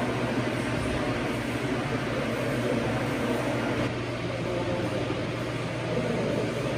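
Electric fan running, a steady rush of air over a constant low hum; the level drops slightly about four seconds in.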